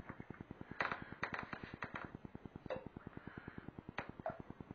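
Light clicks and knocks as a balancer jigging lure is jerked on a short ice-fishing rod in a water-filled bathtub: a cluster about a second in and single ones later on. Under them runs a steady fast ticking of about ten a second.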